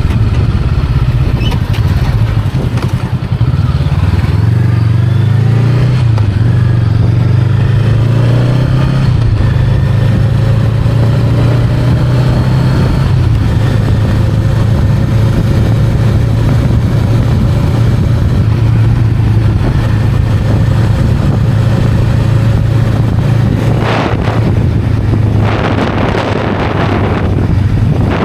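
Honda Rebel 500's 471 cc parallel-twin engine pulling on the road, rising a little in pitch a few seconds in as the bike speeds up, then holding a steady cruise. Near the end, two short rushes of noise cut across the engine.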